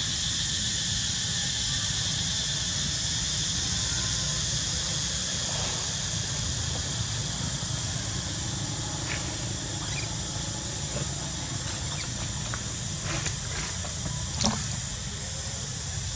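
Steady outdoor ambience: a high, even drone of insects over a low rumble, with a few soft clicks and one sharper click near the end.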